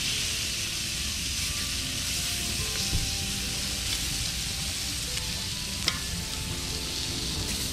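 Chicken wings sizzling on a hot stainless steel grill plate over a campfire, a steady hiss. A sharp click about six seconds in and a smaller one about three seconds in.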